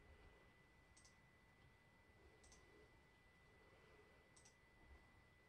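Near silence: quiet room tone with a faint steady high whine and three faint, short clicks spaced about a second and a half to two seconds apart.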